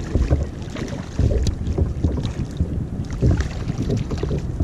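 Wind buffeting the microphone with a steady low rumble, over water slapping around a kayak, with scattered sharp splashes as a small fish is reeled to the surface and lifted out.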